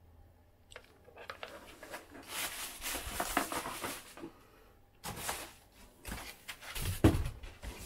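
Packing being handled in a cardboard box: foam inserts and cardboard rustling and scraping in two spells, with a sharp knock near the end.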